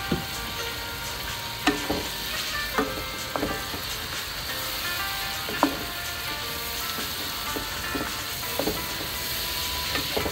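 Diced pork and aromatics frying in a stone-coated wok, sizzling steadily, while a wooden spatula stirs them and knocks against the pan about seven times.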